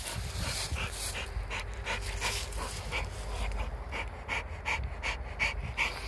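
American Staffordshire Terrier panting quickly and evenly with its tongue out, about three breaths a second, winded after tug play on a rope.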